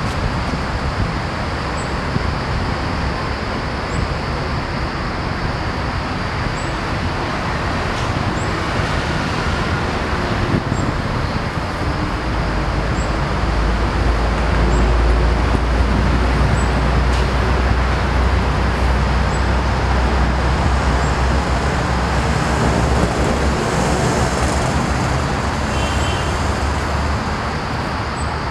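Steady road traffic noise, with a heavier vehicle's low rumble building about twelve seconds in and dying away some ten seconds later. A faint, high, short chirp repeats every couple of seconds.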